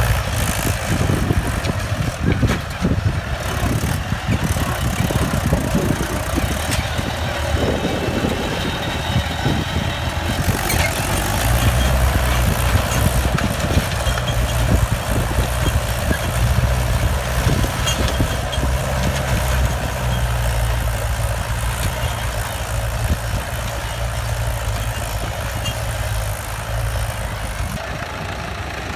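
Mahindra 575 DI tractor's four-cylinder diesel engine running steadily under load while it drags a disc implement through the soil, with a second tractor's diesel engine also running.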